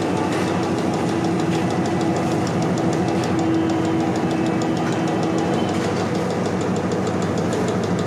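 Pressure cooker inner-lid cutting machine running steadily under test: a continuous hum with a fast, even ticking of about six strokes a second. It is running smoothly, with no unusual noise.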